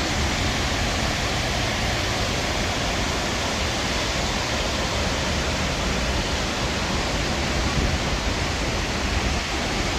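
Steady rushing of the Snake River pouring over the falls at the Idaho Falls diversion dam, an even unbroken noise.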